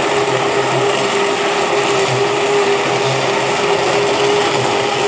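Large commercial immersion blender running at a steady speed in a pot of lobster bisque, puréeing the soup. Its motor gives an unbroken whine.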